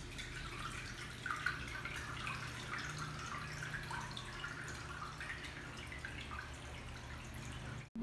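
Sudsy water trickling, dripping and splashing in a Panasonic top-load washing machine, over a steady low hum.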